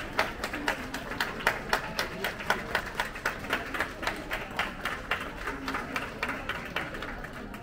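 A group of people applauding, many hands clapping at once, dying away near the end.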